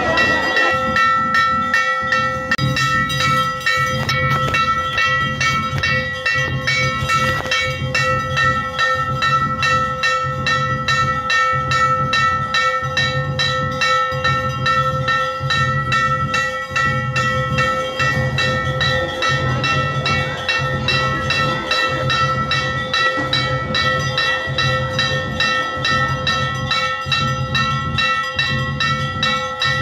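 Temple puja bells ringing rapidly and without a break, over a low drum beat that keeps a steady pace of about one beat a second.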